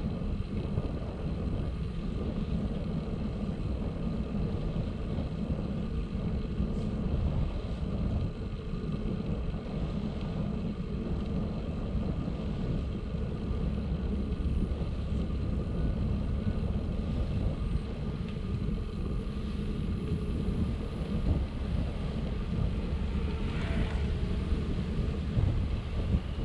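Bicycle rolling along a path: a steady low rumble from the tyres and the moving ride, without a break.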